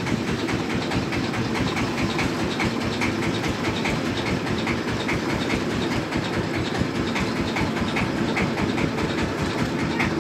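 Small river tour boat's engine running steadily under way: a low, even rumble with a light ticking over it.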